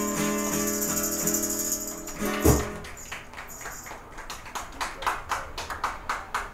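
Live acoustic guitar music on a sustained strummed chord, ended by a loud thump about two and a half seconds in. A run of sharp percussive hits follows, about four a second.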